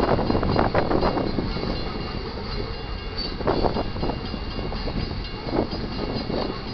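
Loaded freight train cars rolling past on the rails: a steady rumble with clusters of wheel clacks over the rail joints, louder at first and easing a little.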